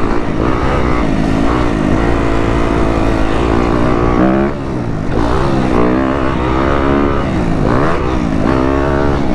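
2015 Yamaha YZ250F's single-cylinder four-stroke engine being ridden, its pitch rising and falling again and again as the throttle is opened and closed and the gears change.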